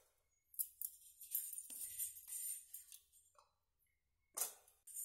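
Background music with jingling, tambourine-like percussion, faint and broken by two short dead-silent gaps, one at the start and one about three seconds in.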